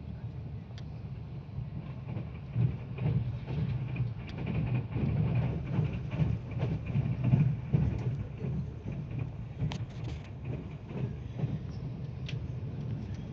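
Hyundai InterCity+ electric train running along the track: a steady low rumble with irregular knocks from the wheels on the rails, growing louder through the middle and then easing, with a few sharp clicks near the end.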